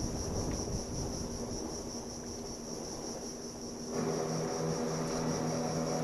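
Steady high-pitched insect buzzing from the mangroves. About four seconds in, a low, even mechanical hum of several tones starts abruptly underneath it.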